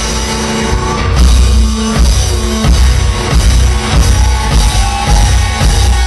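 Live rock band playing loudly: drum kit, electric guitars and bass.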